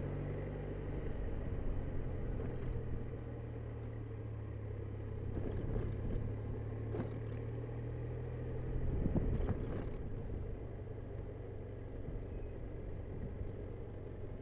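Honda Silverwing scooter engine running steadily while riding in traffic, with road noise around it and a brief louder swell about nine seconds in.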